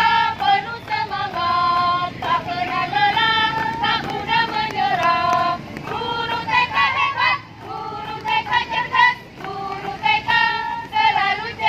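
High-pitched singing of a song, held notes with short breaks between phrases.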